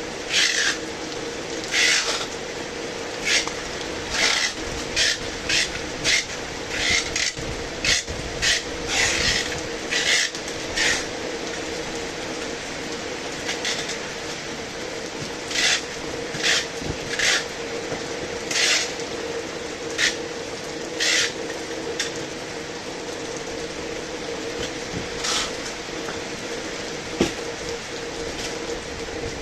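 Heavy rain falling steadily, with irregular short splashing bursts every second or so that thin out after about eleven seconds. A faint steady hum runs underneath.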